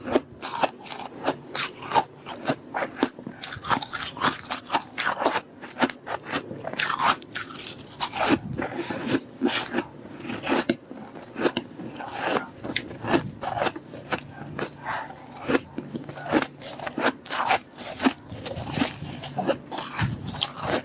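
Freezer frost being bitten and chewed right at the microphone: a rapid, irregular run of crisp crunches, several a second, as mouthfuls of packed frost are crushed between the teeth.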